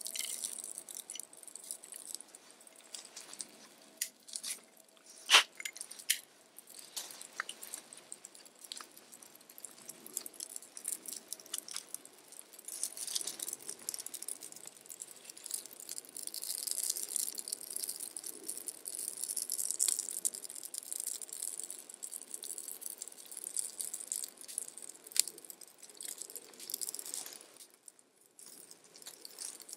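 Small kindling fire of dry twigs crackling and snapping as it catches, thickening into a busy, hissing crackle through the middle; one loud sharp snap about five seconds in.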